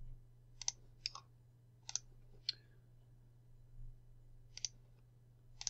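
Computer mouse clicking about six times, short sharp clicks at uneven intervals, over a faint steady low hum.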